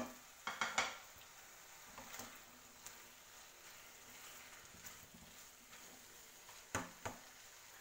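Food stir-frying in a non-stick wok: a faint steady sizzle, with a silicone spatula scraping and knocking against the pan, a few strokes about half a second in, once around two seconds in and twice near the end.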